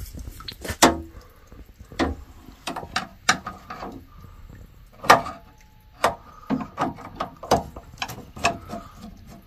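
Irregular clicks, knocks and clinks of hand tools and parts being handled while working on a Navien water heater. The loudest knocks come just under a second in, at about two seconds, and at about five seconds.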